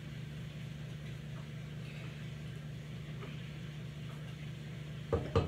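A steady low mechanical hum, with a few loud knocks of a utensil against a bowl near the end.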